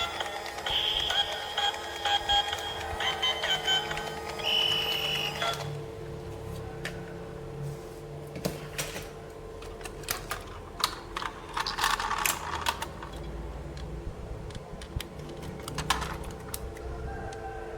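Small plastic toy pieces being handled, with scattered light clicks and taps. A short electronic toy tune plays for about the first five seconds and then cuts off.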